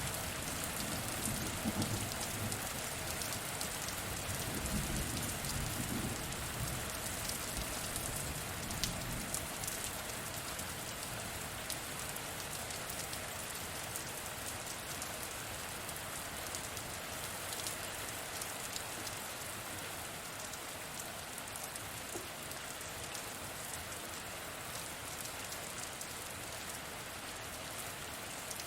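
Steady, dense rain falling on a hard surface, with single drops ticking through it. A low rumble of distant thunder dies away over the first several seconds.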